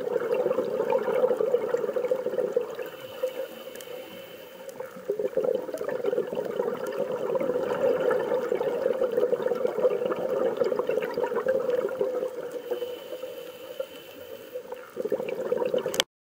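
Steady rushing water noise, with two quieter dips, cutting off suddenly near the end.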